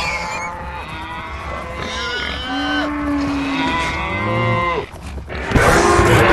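Cartoon stomach-growl sound effect: a long, moo-like gurgling growl whose pitch slides up and down in several swoops. A louder, busier sound cuts in near the end.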